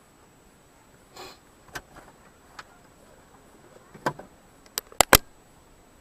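Quiet car cabin with a few faint clicks and knocks, then two sharp, loud clicks in quick succession about five seconds in.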